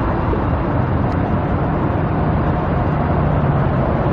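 Steady road traffic noise: a constant rumble of passing vehicles with a low engine hum.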